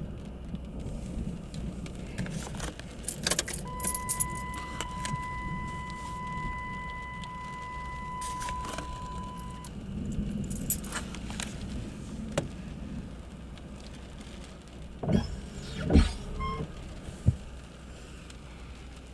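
Keys jangling and clicking in a car, with a steady electronic warning tone from the car sounding for about six seconds. A few louder knocks come near the end under a constant low rumble.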